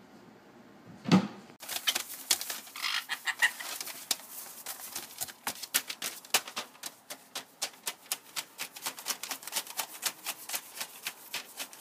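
A thump about a second in, then a caique parrot scrambling and hopping on newspaper: a fast, uneven run of sharp clicks and paper crackles, several a second.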